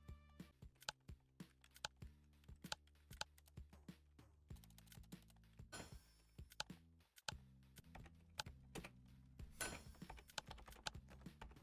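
Quick irregular clicks and taps, several a second, over faint background music with steady low notes.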